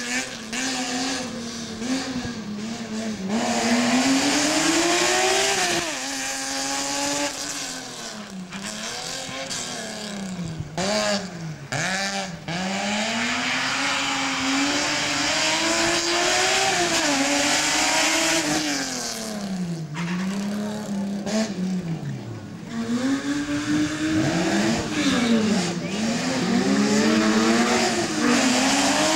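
A competition car's engine revving hard through a slalom run, its pitch climbing and dropping again and again as the driver accelerates, lifts and shifts between the cones. Tyres squeal at times.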